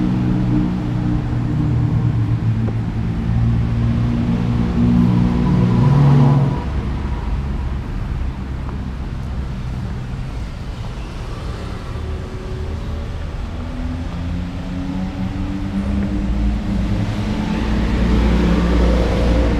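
Road traffic: motor vehicle engines running close by. One engine note drops away suddenly about six seconds in, and another builds and grows louder toward the end.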